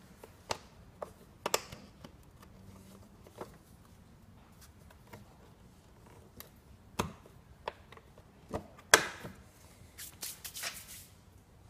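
Plastic latches and lid of a Chevrolet Epica's air filter housing being pressed and snapped shut by hand: a few scattered sharp clicks and knocks, the loudest about nine seconds in and a short cluster after it.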